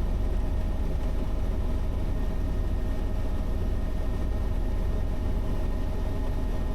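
Bell 505 helicopter in steady flight heard from inside the closed cabin: a constant low rumble from the rotor and Arrius 2R turbine, with a faint steady whine over it.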